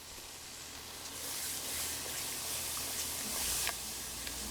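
Water sizzling as it hits hot browned flour and oil in a pan for gravy. It is a hiss that swells about a second in and eases off near the end, with a light knock shortly before the end.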